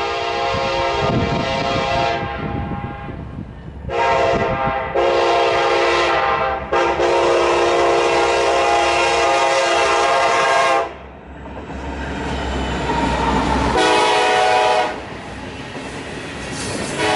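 Diesel freight locomotive sounding its multi-note air horn in a series of blasts, one of them held about four seconds, as a loaded grain train passes at speed. Between the blasts comes the low rumble of the train, with covered grain hoppers clattering over the rails.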